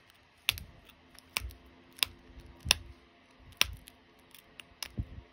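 Sharp clicks as small pressure flakes snap off the edge of an opalite (glass) arrowhead under a copper-tipped pressure flaker: about six strong clicks, irregularly spaced roughly one a second, with a few fainter ticks between.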